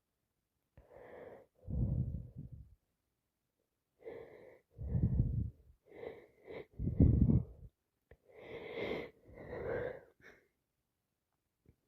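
A woman with sinusitis sneezing three times, each sneeze set off by a wheezy catching breath, the third the loudest; a few more wheezy breaths follow near the end.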